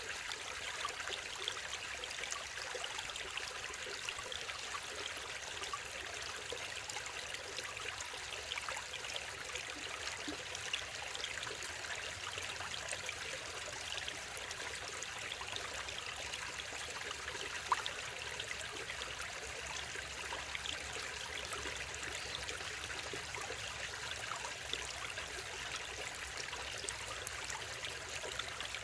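Mountain stream water running steadily over rocks, a continuous babbling rush with small splashes and ticks.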